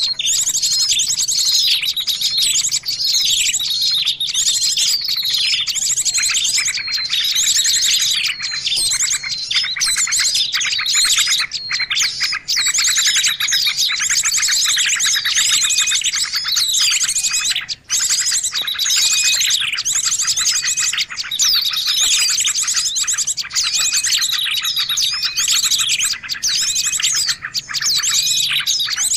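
Mixed bird-lure recording of many small songbirds chirping and trilling over one another without a break, with quick rising and falling notes and fast trills.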